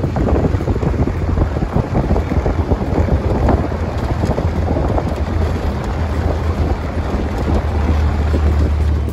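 A vehicle driving along a dirt road: a loud, steady low rumble with rough road and wind noise buffeting the microphone.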